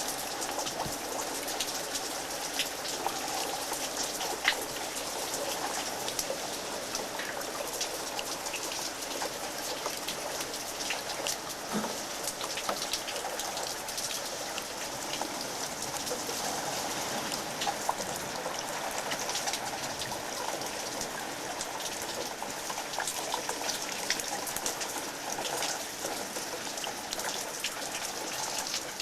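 Steady rain falling, with many separate drops striking and dripping all through.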